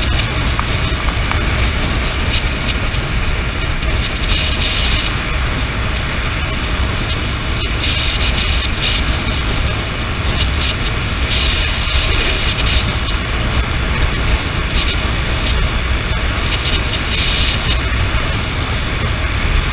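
Wind rushing over the microphone on a Honda CB motorcycle at cruising speed, a steady deep rumble and hiss with the engine and tyre noise underneath.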